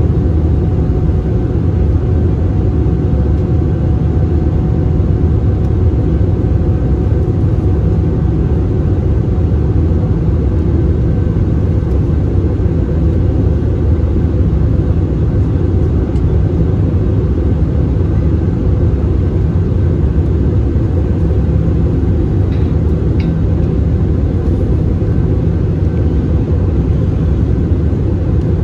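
Steady cabin rumble of an Airbus A320-216 in flight, heard from a window seat over the wing: the CFM56-5B engines and rushing airflow, with a faint steady whine above the low roar.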